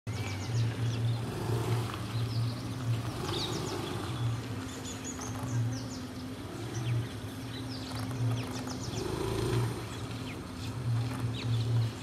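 Small birds chirping: many short, high, quick chirps one after another. Underneath runs a low hum that pulses on and off about once a second.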